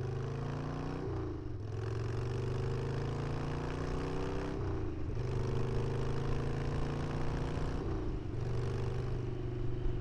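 Harley-Davidson Sportster V-twin accelerating through the gears: the engine note climbs, drops at each upshift and climbs again, three shifts in all.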